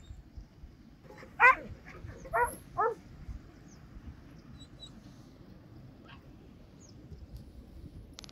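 A dog yelping three times in quick succession, the first and loudest about a second and a half in, the other two about a second later.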